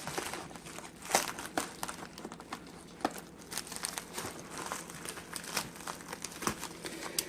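Shipping bag being opened and handled by hand, with irregular crinkling and crackling and a sharper snap about a second in.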